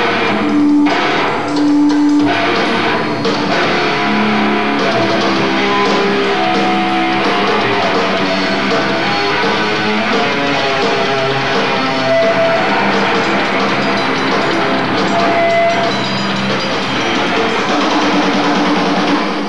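Death metal band playing live: distorted electric guitars holding sustained notes over a drum kit, breaking off at the very end.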